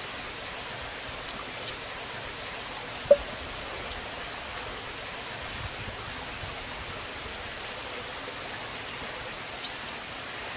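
Steady background hiss with a few light clicks and knocks from a bamboo cup being handled and its bamboo lid fitted on. The sharpest knock comes about three seconds in.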